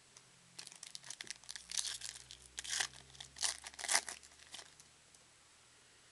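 Clear plastic wrapper of a trading-card pack being torn open and crinkled: a run of crackles starting about half a second in, loudest around three to four seconds, dying away before the five-second mark.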